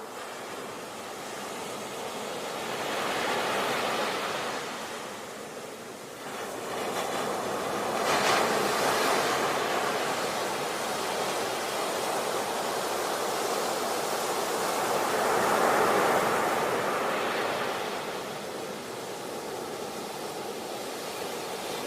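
Ocean waves breaking and washing on a shore: a steady rushing surf that swells into louder breakers about three times and ebbs between them.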